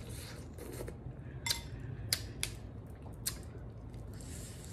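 Close-miked eating of sauce-dipped snow crab: wet, squishy mouth sounds with a few sharp clicks through the middle.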